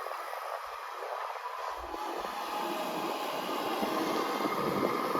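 Komatsu PC160LC-7 hydraulic excavator running and working, a steady mechanical noise with a faint whine that grows louder about two seconds in.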